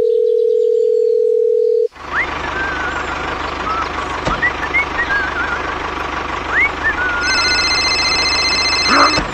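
A telephone dial tone holds steady for about two seconds. Then a tractor engine runs steadily with birds chirping over it. Near the end a high, steady electronic tone comes in on top.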